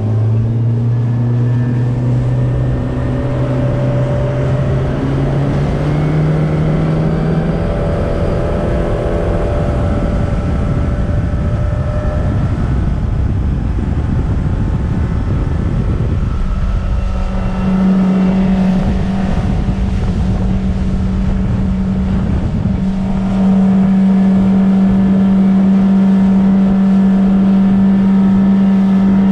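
Boat's Suzuki outboard motor accelerating, its note climbing over the first several seconds, then running steadily at speed and getting a little louder about two-thirds of the way through. Heavy wind rumble on the microphone and hull noise over the chop lie under it.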